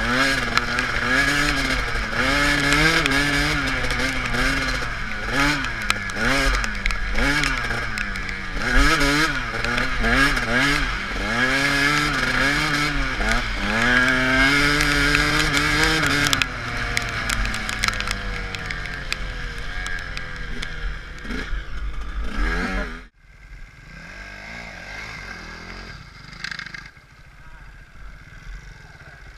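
KTM 125 SX two-stroke dirt bike engine heard from the rider's helmet, revving up and dropping back again and again, then winding down for several seconds. About 23 seconds in the sound cuts abruptly to a much quieter engine running at low revs.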